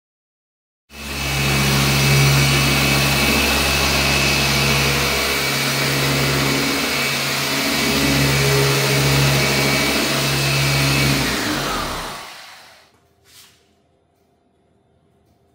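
FLEX machine polisher with a yellow pad running steadily on car paint during the refining polish stage of paint correction: a low motor hum with a high whine. After about eleven seconds it spins down with a falling whine and stops, followed by a brief tap.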